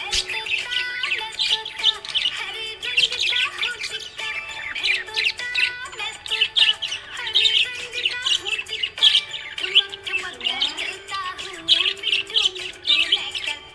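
Budgie chirping in a continuous run of quick, short notes, with background music underneath.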